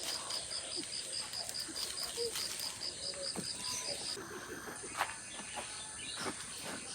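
An insect chirping in a steady high pulse, about four chirps a second, that stops about four seconds in, with faint scattered bird calls.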